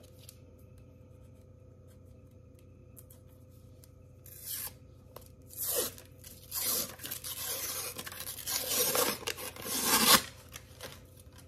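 Paper label being peeled and torn off a cardboard tube can of refrigerated cinnamon roll dough. The rustling, tearing sound starts about four seconds in and comes in several bursts, loudest toward the end.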